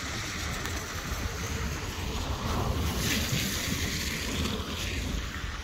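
Wind buffeting the phone's microphone: a steady rushing noise with an uneven low rumble.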